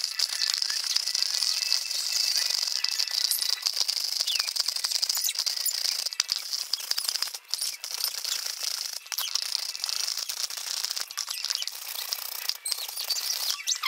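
A potato being grated on a stainless steel box grater into a metal bowl: a steady high scraping with many small clicks as the potato is rubbed over the blades.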